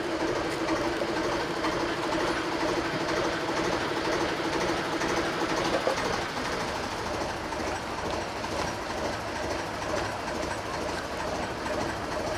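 Small narrowboat's inboard diesel engine chugging at idle, with a steady hum that drops away about halfway through.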